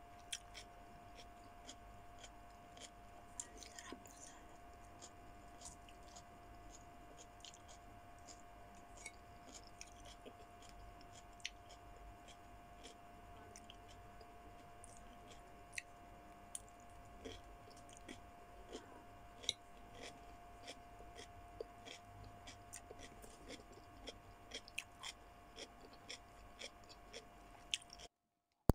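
A person chewing food close to the microphone: quiet, scattered small clicks and wet mouth sounds over a faint steady hum. The sound cuts off abruptly just before the end.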